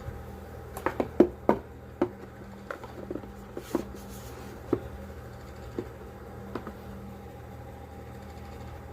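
Hands handling a phone box and its accessories: a quick run of sharp clicks and knocks about a second in, then a few scattered single taps, over a steady low hum.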